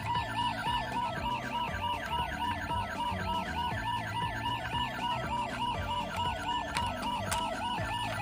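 Electronic siren of a toy emergency vehicle, a fast up-and-down warble repeating about three times a second.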